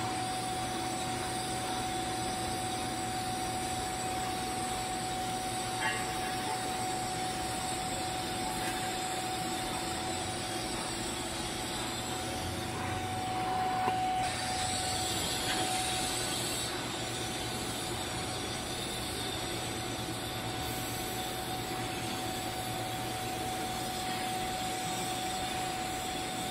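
TIG welding arc burning steadily while filler rod is fed in by hand: a continuous even hiss with a constant tone underneath, the hiss growing brighter for a few seconds about halfway through.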